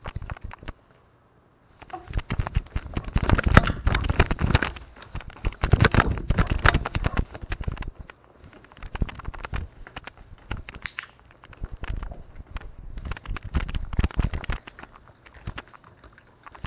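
Rubbing, scraping and knocking noise from a camera worn on a dog, shifting against its fur and harness as the dog moves. The clicks come in dense clusters, with a short lull about a second in.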